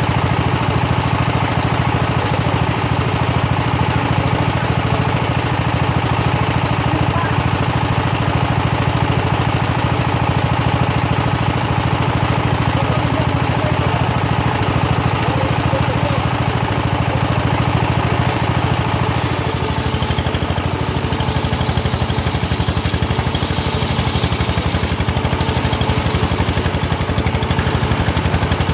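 Homemade engine-driven circular saw running steadily, with the blade hissing through hard teak in several bursts in the latter part.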